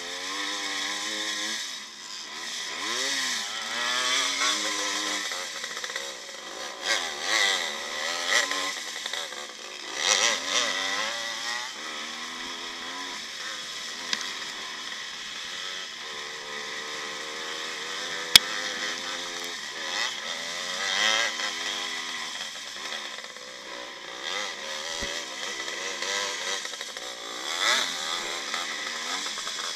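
1955 Maico two-stroke single-cylinder motocross engine heard from on board, its revs repeatedly rising and falling as it is ridden hard and shifted through the gears. A single sharp click sounds about eighteen seconds in.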